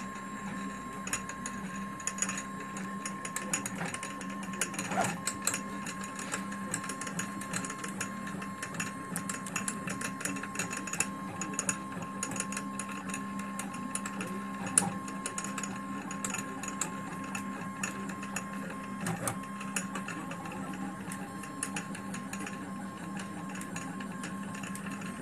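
3D printer printing, its stepper motors whirring and buzzing in quick, changing runs as the print head moves, with many small irregular clicks over a steady hum and a constant high tone.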